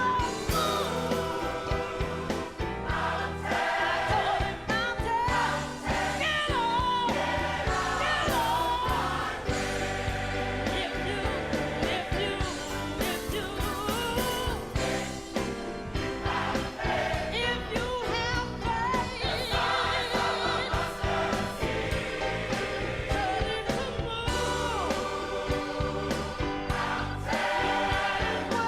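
Gospel choir and soloist singing a fierce up-tempo gospel song over a live band with bass and drums, continuously.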